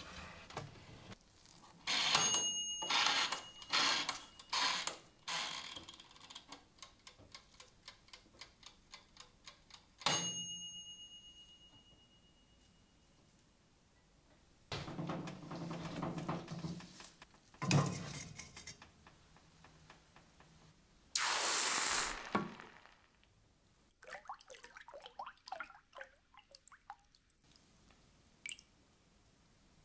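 A run of metal clicks and clinks from the knife on the oven's wire rack and the oven controls. About ten seconds in comes one ringing ding that fades slowly. Later, after a short loud hiss, the hot blade crackles and bubbles as it goes into the tray of liquid.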